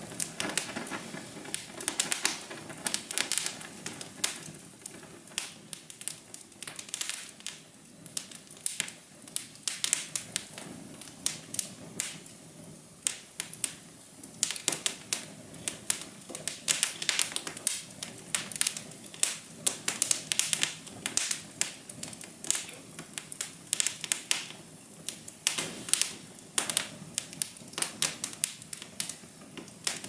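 Wood fire crackling steadily: dense, irregular sharp pops and snaps from burning twigs and branches, over a soft low hiss of the flames.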